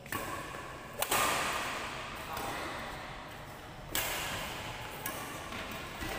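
Badminton rackets hitting a shuttlecock in a rally: four sharp hits, the loudest about a second in and just before four seconds, each ringing on in the large hall.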